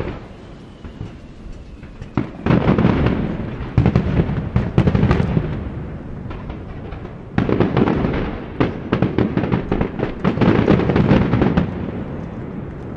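Starmine fireworks: two dense runs of rapid bangs and crackling bursts, the first starting about two seconds in and the second about seven seconds in, with a short lull between them and a fade near the end.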